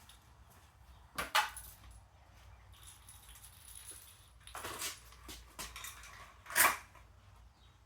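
Window blind slats rattling and clattering as the blinds are handled, in three short bursts: about a second in, around four and a half seconds, and the loudest near six and a half seconds.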